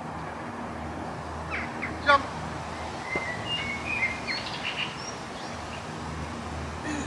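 Birds chirping and calling in a tree-lined open lawn, with one louder, quick call falling in pitch about two seconds in, over a steady low hum.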